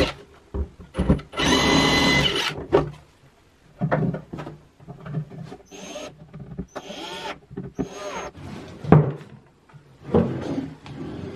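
Ryobi cordless drill working through a wooden drawer front to fit a handle. It runs for about a second, then in several shorter bursts, and a sharp knock comes near the end.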